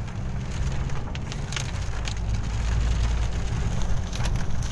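A vehicle travelling on a wet road in the rain: a steady low rumble with scattered sharp ticks and crackles.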